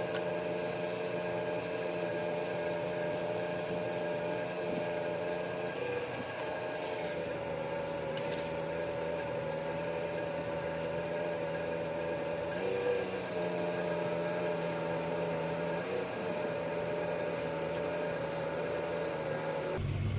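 A parked car running, giving a steady mechanical hum with a whine that dips slightly in pitch a few times. Just before the end it cuts abruptly to a different, lower hum.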